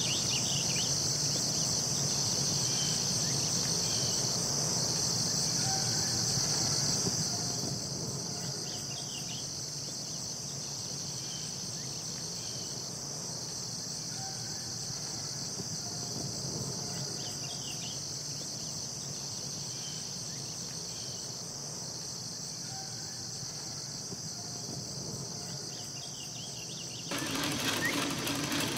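Steady, high-pitched chirring of insects, with faint short chirps of birds every few seconds. About a second before the end, a small machine starts a steady whir as a reel spins thread.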